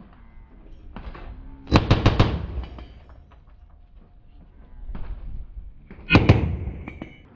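Two short bursts of rapid rifle fire from a FightLite MCR dual-fed belt/magazine upper, each a quick run of several shots, the first about two seconds in and the second near the end.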